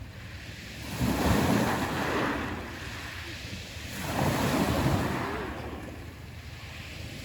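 Black Sea waves breaking on the shore: two surges, about a second in and about four seconds in, each rushing up and then fading away.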